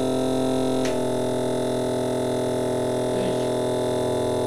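Small electric motor running on a bank of supercapacitors, giving a steady buzzing hum with many overtones. A click about a second in, after which the tone changes slightly.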